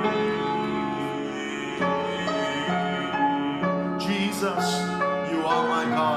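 Soft, slow keyboard music with held chords changing every second or so. A voice comes in quietly over it about four seconds in.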